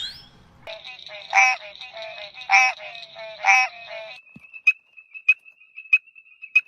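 Animal calls: first a rapid rattling croak with three louder pulses, then from about four seconds in a thin steady high tone broken by a sharp click roughly every half second.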